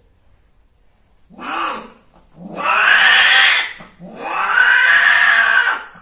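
Cats yowling during mating: a short cry about a second in, then two long, drawn-out yowls.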